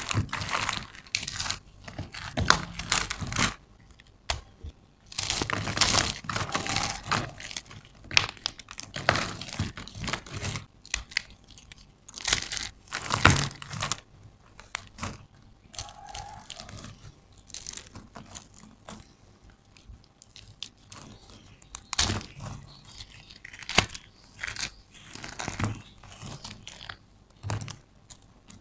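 Dry bar soap and small soap cubes crushed and crumbled between the fingers: irregular crunching and crackling. It comes in busy spells, with a quieter stretch in the middle.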